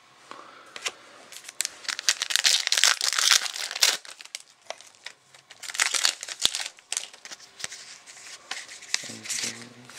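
Foil trading-card pack wrapper crinkling and tearing as it is handled and opened, in irregular crackly bursts that are loudest from about two to four seconds in and again around six seconds.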